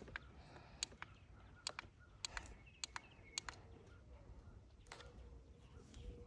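Faint, sharp clicks at uneven intervals, about seven in six seconds, from the push button on a Honda ATV's digital dash being pressed to step the display through its readouts.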